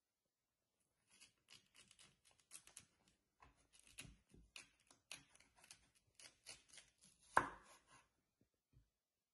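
Chef's knife slicing a courgette lengthwise into strips on a wooden chopping board: a run of faint, soft clicks starting about a second in, with one louder knock of the blade on the board about seven seconds in.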